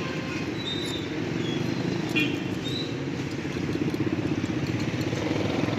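Steady low drone of a small engine running, with a sharp metal click about two seconds in as the fork and spoon touch the cast-iron cake mould.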